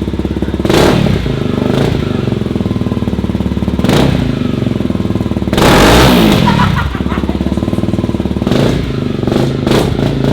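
Honda CRF250L's single-cylinder four-stroke engine running loud through a freshly fitted FMF PowerCore 4 exhaust and PowerBomb header. It idles between quick throttle blips, with one longer rev about six seconds in.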